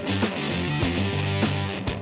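Theme music with guitar over a steady beat.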